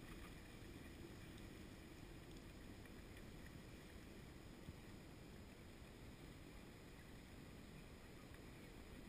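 Near silence: a faint, steady background hiss with a low rumble and no distinct sounds.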